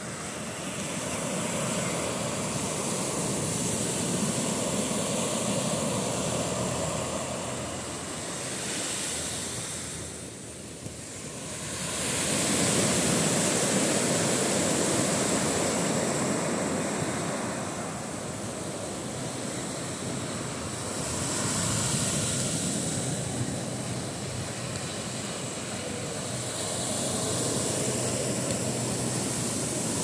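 Small ocean waves breaking and washing up a sandy beach. The surf swells and ebbs every several seconds, with a brief lull near the middle.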